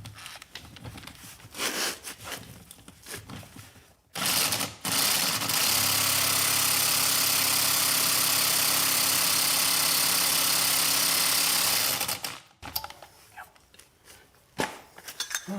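Power impact wrench hammering on a seized fastener, with an easy-out or a welded-on nut as the grip. It gives a short burst about four seconds in, then runs steadily for about six seconds without breaking it loose.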